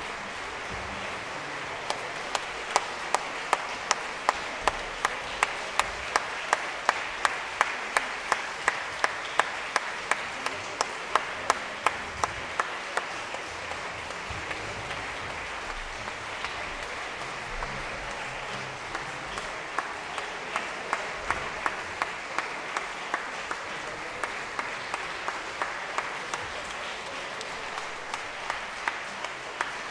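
Concert-hall audience applauding. Sharp, evenly spaced claps stand out above the crowd's clapping at about two or three a second, drop back for a few seconds about midway, then return.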